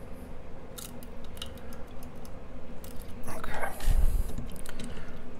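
Small metallic clicks and taps of a pin-tumbler lock cylinder being handled in a vise during disassembly. About three seconds in comes a louder scraping rattle, ending in a low thump just after four seconds.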